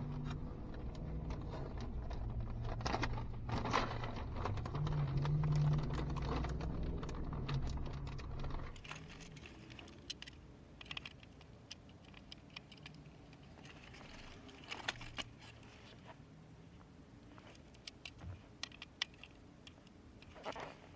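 Scattered light clicks and rattles of a plastic dashboard climate-control panel and its small bulb sockets being handled and twisted. A low steady hum under the first third cuts off abruptly, leaving only sparse small ticks.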